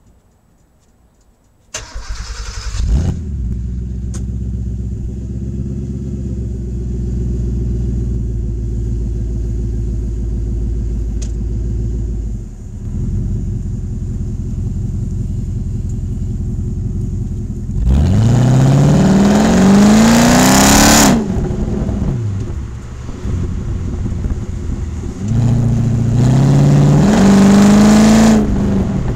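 Porsche 928 S4's V8 engine, through a stainless steel sports exhaust, starting about two seconds in and idling steadily. It then revs up and falls back, and near the end rises again in steps.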